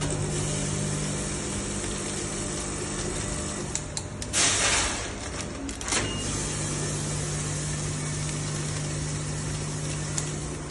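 Double-head granule filling machine running with a steady low hum. About four seconds in, a short hissing rush comes as a dose of granules drops through the chute into a foil pouch, followed by a click about two seconds later.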